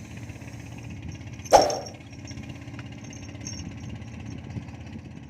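A boat's motor running steadily with a pulsing low rumble, and one sharp loud knock about a second and a half in.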